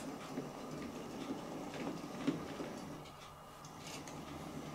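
Hattons OO gauge Andrew Barclay 0-4-0 saddle tank model locomotive running with a short train of wagons: a steady low motor hum with irregular clicks of the wheels over the track.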